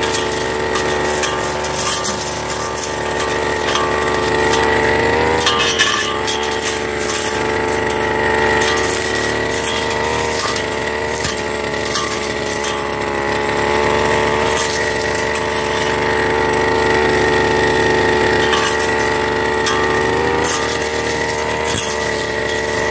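Backpack brush cutter running at high speed while its blade cuts through thick, dry cogon grass, with crackles and clicks as stems are struck. The engine pitch dips briefly twice, about five seconds in and near the end, as it bites into the grass.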